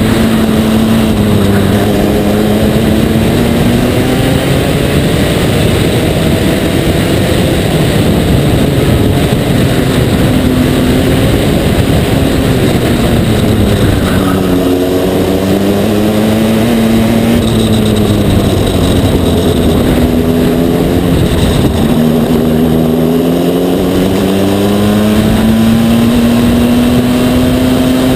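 Aixro XR50 rotary kart engine at racing speed on board the kart. Its pitch drops three times as it slows for corners and climbs back each time under acceleration.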